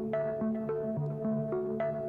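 Background music: a synthesizer piece with plucked, mallet-like notes over a steady pulse.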